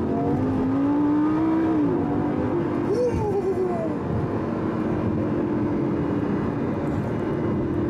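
Lamborghini Gallardo LP560-4's 5.2-litre V10, heard from inside the cabin in sport mode with its exhaust valves open, accelerating. Its pitch rises for about two seconds and drops sharply at a gear change, then rises and falls once more before the engine runs steady.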